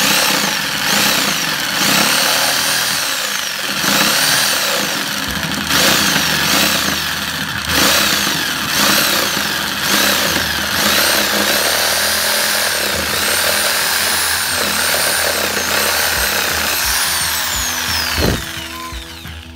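INGCO 400 W corded jigsaw running and sawing, its motor whine rising and falling every second or two as the load changes. The motor winds down with a falling whine near the end.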